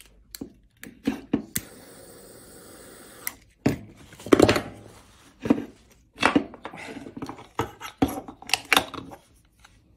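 A small butane torch clicks alight and hisses steadily for about two seconds, melting the freshly cut end of the plastic starter rope. Then comes a run of knocks and plastic clatter as the recoil starter is picked up and handled.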